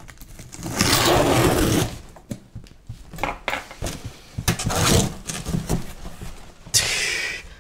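A large corrugated cardboard shipping box being forced open by hand: a long scraping tear of cardboard about a second in, then knocks and rustles as the box is handled, and another loud scrape near the end as a flap is pulled back.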